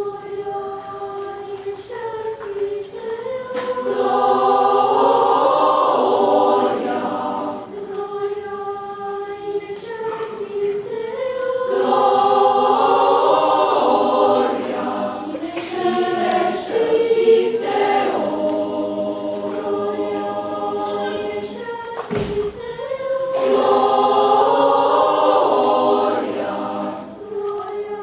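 Youth choir singing a cappella in three-part mixed voices, a Latin text. Quieter held lines swell three times into full, louder chords.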